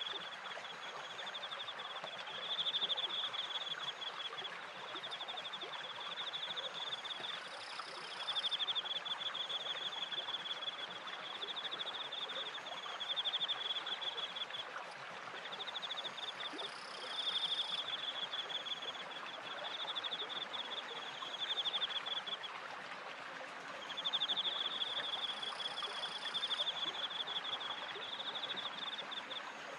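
Crickets chirping in high, pulsed trills that come in repeated bouts of about a second, over the steady rush of running water from a stream and a turning water wheel.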